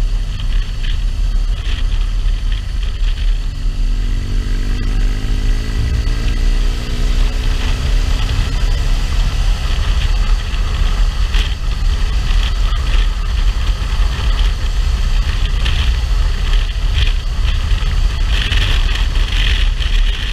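Motorcycle engine running under way with steady wind rush on the microphone; about four seconds in, the engine note rises gently for a few seconds as the bike picks up speed.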